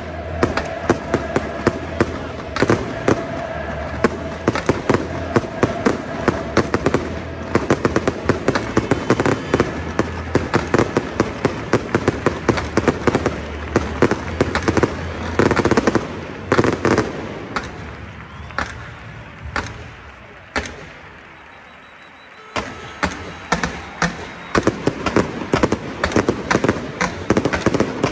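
Fireworks display: a dense, rapid run of cracks and bangs from bursting aerial shells and crackling stars. The bangs thin out to a lull about two-thirds of the way through, then start up again near the end.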